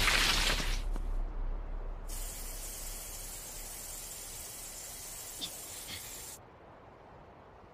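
Anime sound effects: a loud rushing blast fades away over the first second, then a steady hiss of steam starts about two seconds in and cuts off suddenly a little after six seconds.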